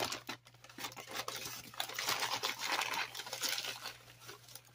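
Brown paper bag crinkling and rustling as hands open it and rummage inside, in uneven bouts that die away near the end.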